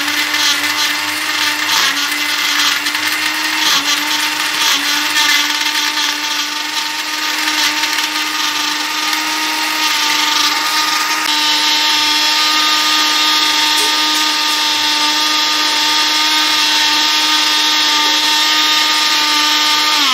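Electric countertop blender running at speed, grinding milk with ice, soaked almonds and poppy seeds into sardai. It makes a steady motor whine that sounds rougher at first and turns smoother and steadier about halfway through as the mix is ground fine.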